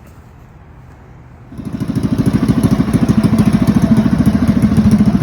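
Harbor Freight Predator 212cc single-cylinder engine starting up for the first time after being reassembled with a new billet side cover and cam. It catches about a second and a half in and then runs steadily with a rapid, even firing pulse.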